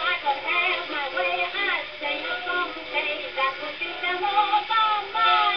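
A record playing on a 1960s Columbia C-1201 portable tube record player set to 78 rpm: music with singing, heard through the player's small built-in speaker. The sound is thin, with almost no bass and no top end.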